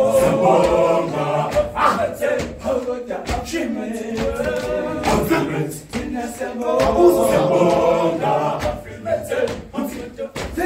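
A group of male secondary-school students singing a cappella together, several voices in harmony with no instruments.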